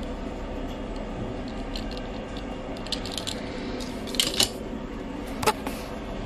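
Light clicks of a small diecast toy car being handled and set down on a tabletop: a few faint ticks, a quick pair of sharper clicks about two-thirds through, and one crisp click near the end, over a steady low hum.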